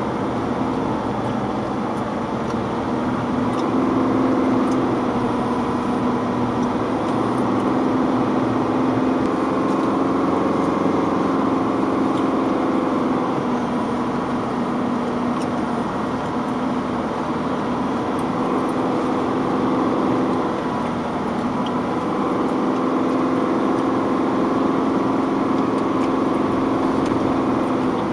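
Vehicle engine running steadily as heard from inside the cabin while driving, its note rising and easing a few times as the throttle changes.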